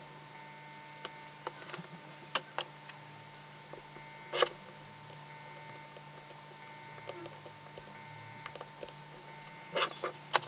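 Scattered light clicks and knocks of a rebuilt DeWalt 12V battery pack and its plastic case being handled and fitted together, with a louder knock about four seconds in and a quick run of knocks near the end, over a faint steady hum.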